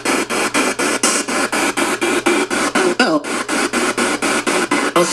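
Spirit box sweeping through radio stations: hissing white noise chopped into rapid pulses about four or five times a second, with a brief falling swoop of pitch about three seconds in.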